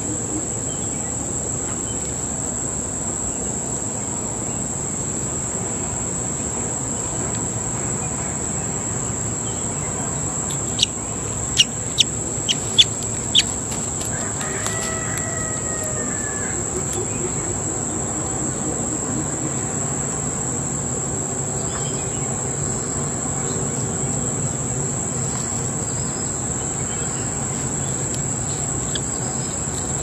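Steady high-pitched insect trill, cricket-like. About a third of the way in comes a quick run of about six sharp clicks, and just after them a short bird call.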